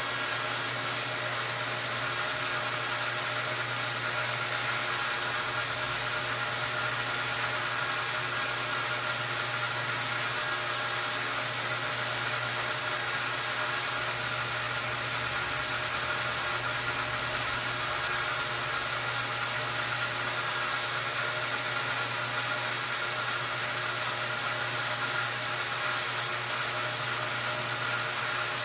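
Metal lathe running steadily with the cutting tool taking a facing cut across a piston, the motor hum and the cut holding an even, unchanging sound.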